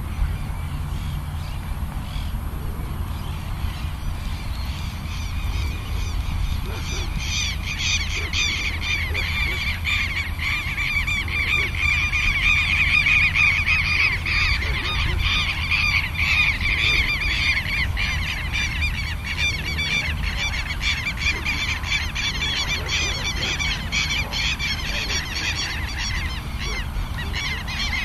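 A flock of birds calling over and over in a dense chorus of short, honking calls. The calls build up a few seconds in, are thickest midway and thin out near the end, over a steady low rumble.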